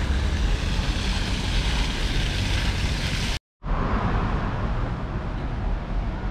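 Steady outdoor street noise with a low rumble of traffic and wind on the microphone, cut by a brief dropout about three and a half seconds in.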